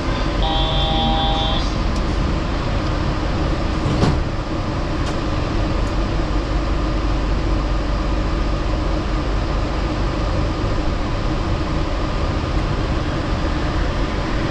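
Yurikamome Line rubber-tyred automated train running between stations, a steady rumble heard from inside the car. A brief steady tone sounds about half a second in, and there is a single knock about four seconds in.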